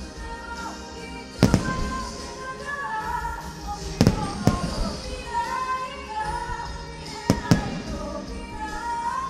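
Fireworks bursting with sharp bangs over a woman singing live to music. There is one burst about a second and a half in, two close together around four seconds, and two more close together near seven and a half seconds.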